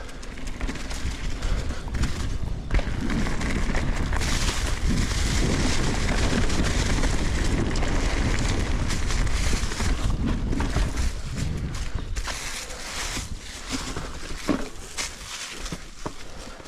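Mountain bike descending a trail at speed: a steady rush of wind buffeting the microphone and tyres rolling over dirt, with scattered knocks and rattles from bumps. The rush is loudest in the middle of the stretch and eases near the end.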